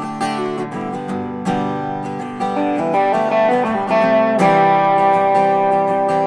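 Instrumental guitar break in a country song: single picked guitar notes and held lead notes over strummed chords, with no singing.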